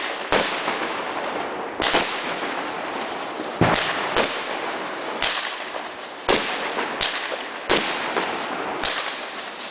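Aerial fireworks going off: about nine sharp bangs at irregular intervals of roughly a second, over a continuous crackle and hiss.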